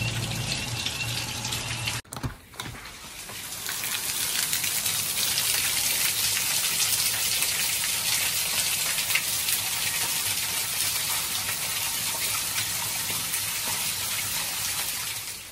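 Heavy rain pouring down, with water streaming off a roof edge, a steady hiss of falling water. It cuts off sharply about two seconds in, then builds back up and stays steady.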